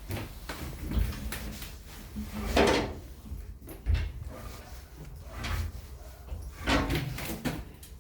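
Several sharp knocks and two longer sliding, scraping noises from moving parts of a 5993 thread-cutting machine, over a low steady hum.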